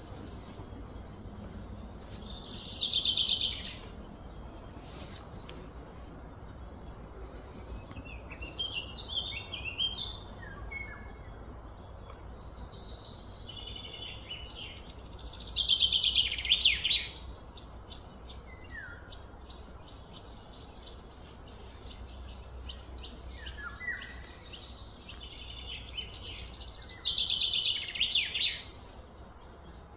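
Birds calling outdoors: a loud, fast-pulsed high call lasting a second or two comes three times, with scattered short chirps between, over a steady background hum.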